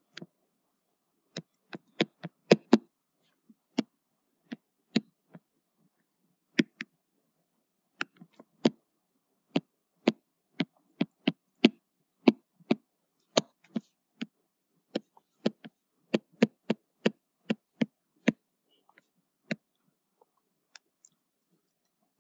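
Stylus tapping against a tablet screen during handwriting: sharp, irregular clicks, bunched several a second while a word is written, with short pauses between.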